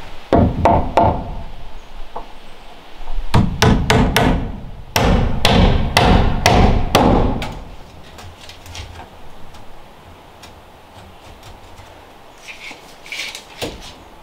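Hammer striking a wooden timber frame in three quick runs of blows, with a few lighter clicks near the end.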